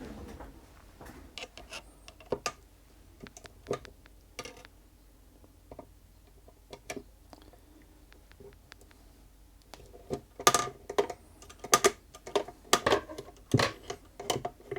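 Sharp clicks and taps of a screwdriver and small metal parts being worked on a Singer Featherweight 221K's lower shaft and its bearing mounting screws, a few scattered at first, then a busier run of louder clicks about ten seconds in. The shaft is binding when these screws are tightened.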